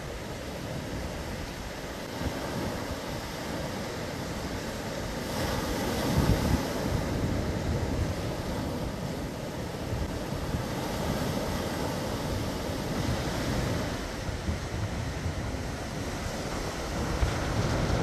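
Rough sea waves breaking and washing in a steady roar, with strong wind rumbling on the microphone. The surf swells louder about six seconds in and again near the end.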